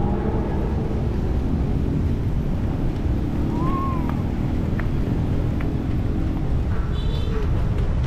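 Outdoor ambience of a steady low rumble, with a short rising-and-falling tone about halfway through and a brief high-pitched call near the end.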